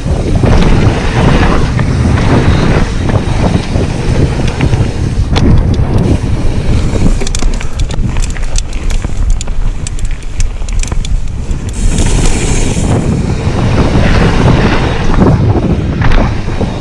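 Mountain bike descending a dirt singletrack at speed: tyres rumbling over the dirt, with the bike rattling and clattering over bumps and wind buffeting the camera's microphone.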